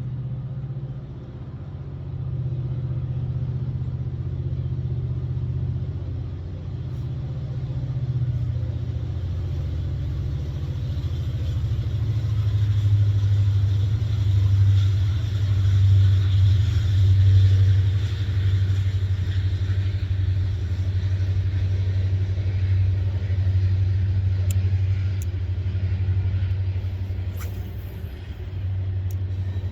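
Strong wind buffeting the microphone: a loud, continuous low rumble that swells and eases over several seconds.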